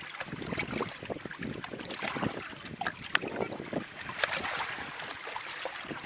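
Water lapping and splashing in quick, irregular little strokes, with some wind on the microphone.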